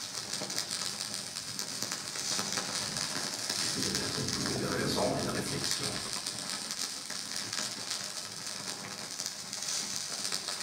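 Live laptop electronics playing a dense crackling, hissing noise texture, like static or rain, with a brief swell of lower sound about halfway through.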